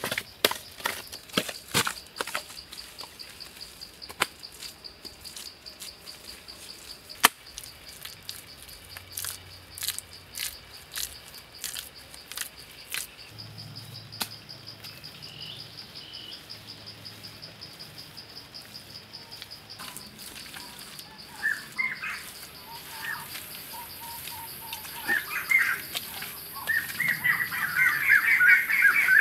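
Hands slapping and packing wet sand in a quick run of dull knocks through the first half. A steady high insect drone runs underneath, and birds chirp over the last several seconds.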